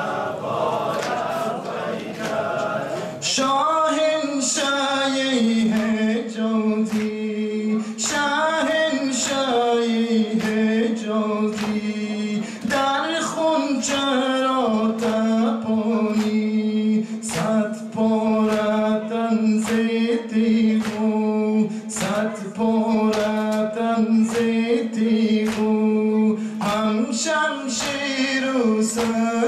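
Unaccompanied Afghan Muharram nawha: a male voice chants a mourning lament and the seated men answer in chorus. Under it, chest-beating (matam) slaps land in time, roughly once a second, starting about three seconds in.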